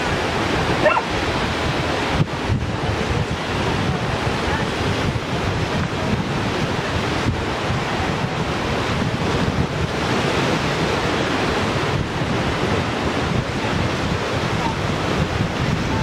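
Steady wash of sea surf on a rocky shore, mixed with wind rumbling on the microphone.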